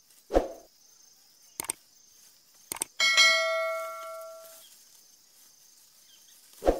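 Subscribe-button animation sound effects: a soft thump, two sharp mouse-style clicks, then a bell chime that rings out and fades over about a second and a half, and another thump near the end.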